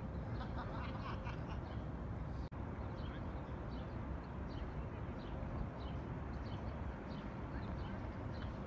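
Small birds chirping repeatedly in short, high, downward-sliding notes over a steady low background rumble of the city.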